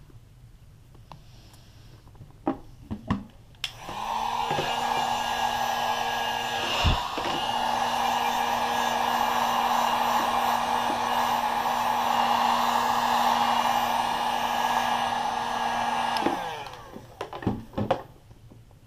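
A 1500-watt heat gun is switched on about four seconds in, runs steadily with a blowing hum for about twelve seconds, then is switched off. It is heating a clear plastic sole-protector film so the film softens and sits onto a sneaker's sole. A few short clicks come before and after.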